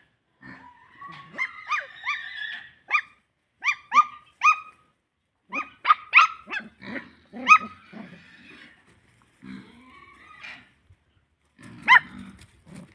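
Australian Shepherd puppy yipping and whining in many short, high-pitched calls that come in irregular clusters.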